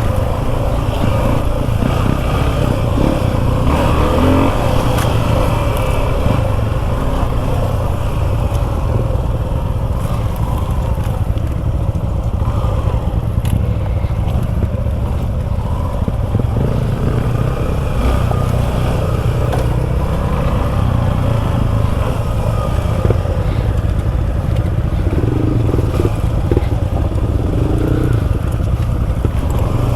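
Suzuki V-Strom 250 SX's single-cylinder engine running steadily as the motorcycle rides an off-road trail, with heavy, constant low rumble from wind on the microphone.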